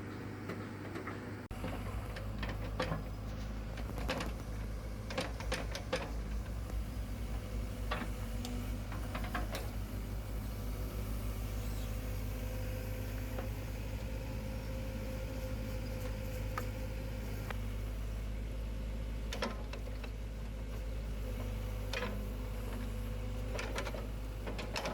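Doosan S55V excavator's replacement Yanmar diesel engine running steadily, with occasional short metallic knocks over the engine sound.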